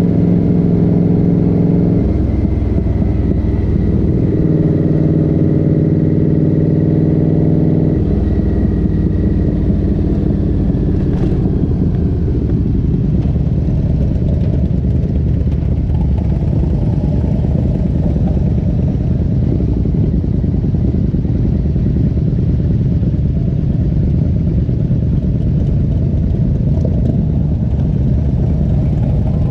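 Motorcycle engine running on the road, heard from the handlebar with wind and road noise. Its note is clear for the first several seconds and changes in steps about two and eight seconds in, then turns rougher and less distinct as the bike slows for an intersection.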